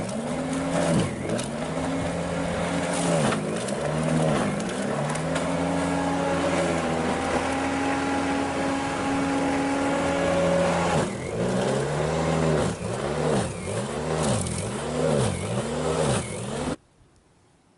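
Snow thrower running with a steady pitched hum that wavers and swells rhythmically, then stops abruptly near the end.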